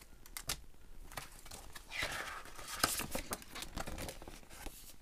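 Clear plastic packaging bags and a glossy catalogue rustling and crinkling as they are handled, with irregular short crackles that thicken about two seconds in.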